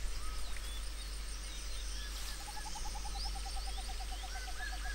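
Forest ambience of wild animal calls: many faint scattered chirps and whistles, and from about halfway through a fast, even run of short low notes, about eight a second, joined near the end by a slower series of higher notes.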